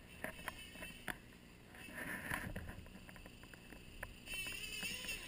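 Faint light clicks and rattles of a radio-controlled model snowmobile, with its motor whine starting up and wavering in pitch about four seconds in.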